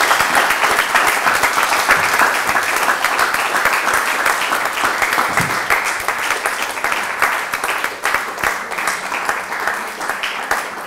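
Audience applauding: dense, loud clapping that slowly thins out and fades near the end.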